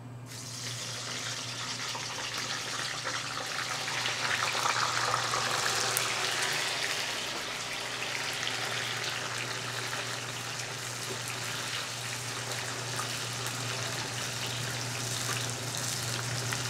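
Fresh-cut okra deep-frying in very hot oil: a sizzle that starts as the okra goes in, swells over the first few seconds, then settles to a steady sizzle.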